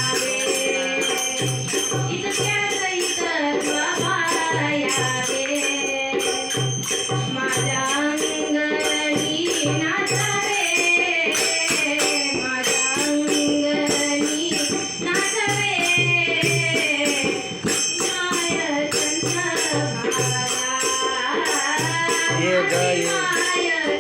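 Marathi devotional bhajan music: a wavering sung melody over a low hand drum beating in short groups of two or three, with steady jingling percussion on top.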